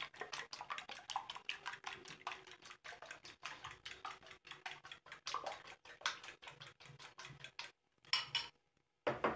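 A metal fork beating raw eggs in a ceramic bowl: rapid, rhythmic clinking of the fork against the bowl, which stops a little before the end, followed by one brief clatter.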